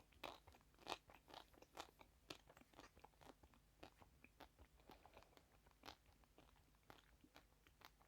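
Close-miked chewing of crunchy sweets: a run of sharp, crisp crunches and crackles at an uneven pace of a few a second, loudest about a second in.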